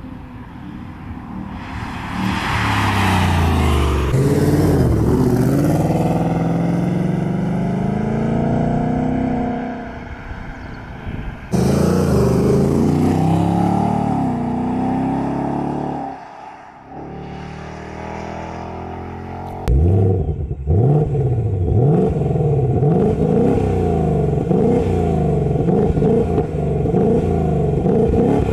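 2024 Ford Mustang GT's 5.0-litre V8 revving, its exhaust note rising and falling in pitch over and over. The sound changes abruptly twice, about 11 and 20 seconds in. The last stretch is quick repeated rev blips.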